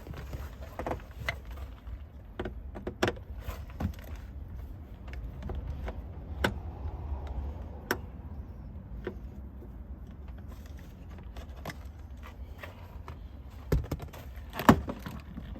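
Scattered clicks, taps and small metallic clinks of hand tools and screws working on a Lexus LX470's driver door trim panel, with one sharp crack about a second before the end, over a low steady rumble.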